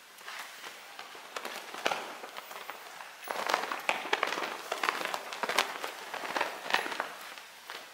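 Two pink fabric dance flags swishing and snapping as they are swung through the air. The flapping grows busier and louder about three seconds in, with many sharp cracks of the cloth.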